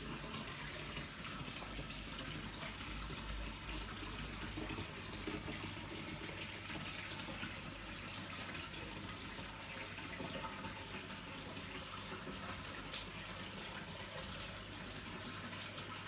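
Small custom waterfall in a paludarium splashing steadily into the pool below, a continuous running-water sound with a low steady hum underneath.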